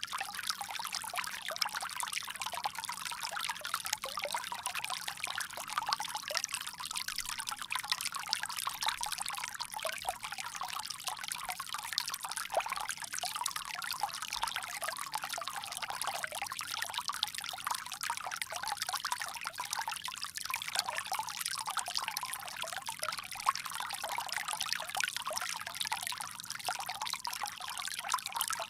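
Water pouring steadily from a bamboo spout into water below, a continuous splashing trickle.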